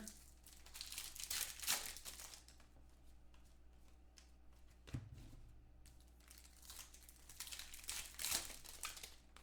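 Foil trading-card pack wrapper crinkling and tearing as it is handled and opened, in two stretches of rustling, with a single soft knock about halfway through.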